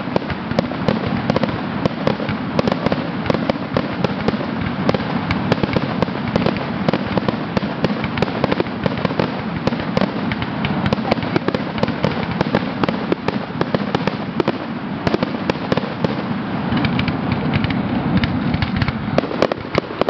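Fireworks finale barrage: aerial shells bursting in rapid, overlapping succession, many sharp bangs a second over a continuous rumble and crackle, without a pause.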